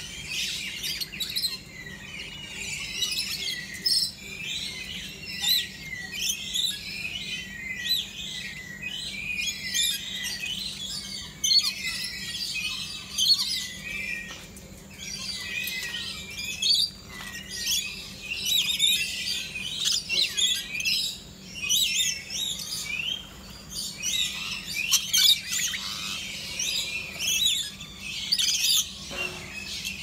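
A flock of rainbow lorikeets chattering: many high-pitched, overlapping chirps and screeches, with a faint steady hum underneath.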